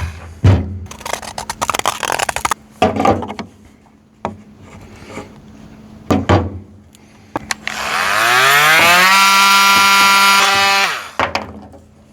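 Handling knocks and scraping on plastic parts. About eight seconds in, a small electric power tool spins up with a rising whine, runs steadily for a couple of seconds, and stops near the end.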